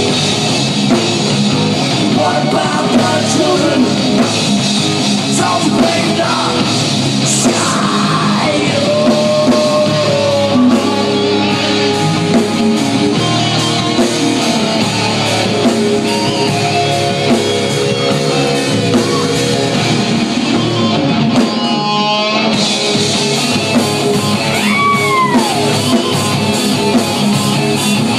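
Live rock band playing loud: electric guitars and drums, with singing.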